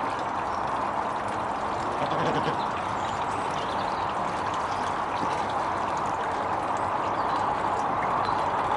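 Water splashing and running steadily down a garden pond's waterfall.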